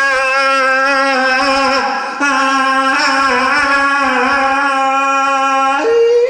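A long held musical note with a slight waver in pitch, rich in overtones. It breaks off briefly about two seconds in, resumes, and steps up to a higher note near the end.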